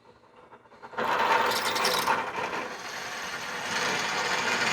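Drill press starting about a second in and drilling a hole through a knife handle scale, the bit cutting with a steady mechanical whir.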